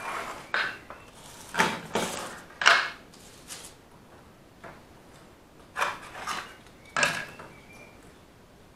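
Irregular knocks and clatters of small hard objects being handled and set down on a wooden tabletop, about ten in all, in two clusters with a pause of about two seconds between them.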